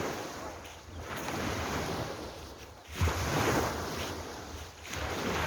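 Ocean waves washing ashore, a steady rush that swells and ebbs, with a louder surge about three seconds in.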